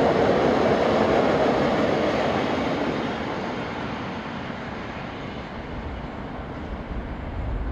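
Freight train of open wagons rolling past on the rails, a steady rumble of wheels and cars that fades as the end of the train draws away.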